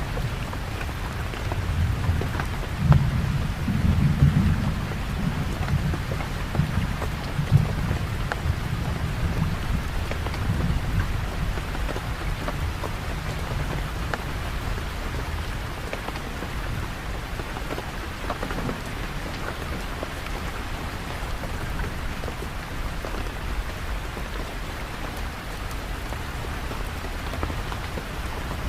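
Steady rain falling, with the patter of individual drops throughout. A low rolling rumble of thunder builds in the first few seconds, is loudest about three and four seconds in, and fades away by about eleven seconds, leaving only the rain.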